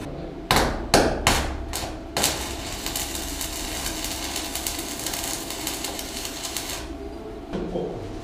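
Stick (electric arc) welding on a steel pipe: a few short crackling arc strikes in the first two seconds, then a continuous crackling, spitting arc for about five seconds, typical of a tack weld. It stops about a second before the end.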